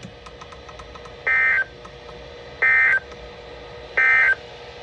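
Three short, identical bursts of EAS (SAME) digital data tones, evenly spaced a little over a second apart: the end-of-message signal that closes a severe thunderstorm warning. A faint steady hum runs underneath.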